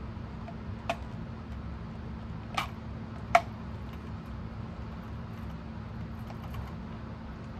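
Hard plastic clicks as the back cover is fitted onto a Kit-Cat Klock: three short sharp clicks, about a second apart at first, the third the loudest. A steady low hum runs underneath.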